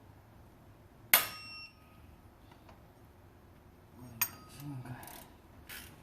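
Hand tools at work on cylinder head bolts being torqued down in sequence. A sharp metallic click with a brief ringing comes about a second in, and another click at about four seconds. Near the end, a wrench ratchets in short strokes, about two a second.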